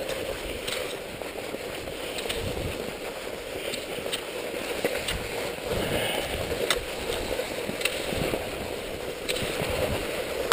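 Cross-country skis sliding and scraping over a groomed, packed-snow track, with wind buffeting the camera microphone. Sharp clicks of the ski poles striking the snow come every second or so.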